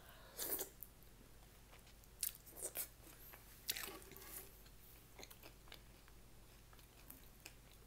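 Close-up chewing and biting of people eating a burger: a handful of short, crunchy bites and wet mouth sounds, most of them in the first half, with quiet gaps between.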